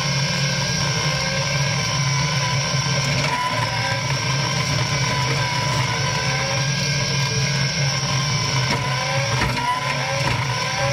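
Caterpillar 297C compact track loader's diesel engine running steadily under load, powering a front-mounted hydraulic bush hog cutting through brush. A few sharp clicks sound near the end.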